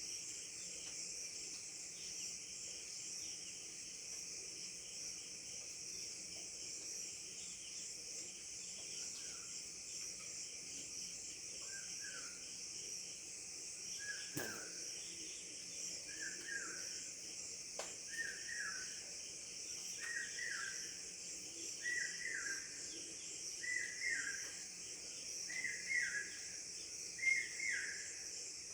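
Steady, high-pitched insect chorus, like crickets, with a bird joining about nine seconds in. The bird repeats a short falling call roughly every second and a half, and the call grows louder toward the end. A single sharp click comes near the middle.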